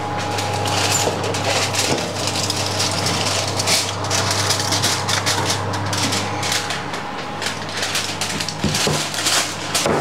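Aluminium foil crinkling and crackling as it is peeled off a baking dish, with a steady low hum underneath.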